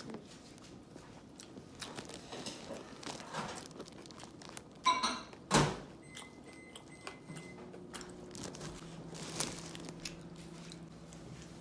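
Seafood being eaten close to the microphone: shells picked apart by hand and chewing, with many small clicks and crunches. Two louder sharp sounds about five seconds in, the second a heavy knock, and a low steady hum sets in about seven seconds in.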